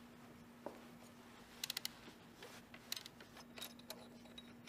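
Faint small clicks and taps of a bolt and tool being handled at the exhaust camshaft adjuster, including a quick run of four clicks about a second and a half in. A faint steady hum runs underneath.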